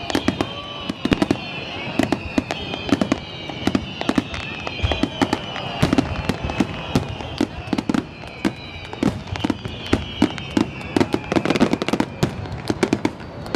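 Fireworks display: rapid, irregular bangs and pops of bursting shells all through, with high whistles slowly falling in pitch above them.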